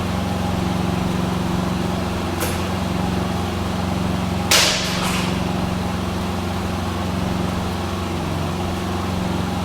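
2018 Harley-Davidson Road Glide's Milwaukee-Eight V-twin idling steadily while it still has an exhaust leak. A brief loud burst of noise cuts in about halfway through.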